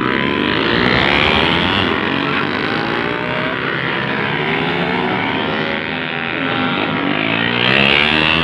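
Several motorcycle engines revving and pulling away one after another, their overlapping pitches rising and falling as the bikes pass.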